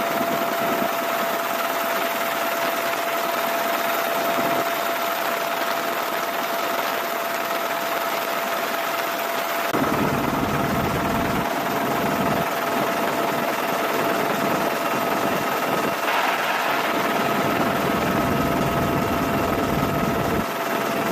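Helicopter in flight: a steady rush of turbine and rotor noise with a constant high-pitched whine running through it.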